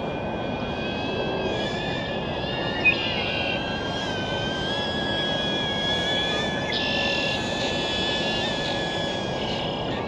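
DJI Avata cinewhoop drone's propellers whining steadily in flight, several tones shifting slightly in pitch as the motors change speed, over a steady rushing hiss. A single sharp click sounds about three seconds in.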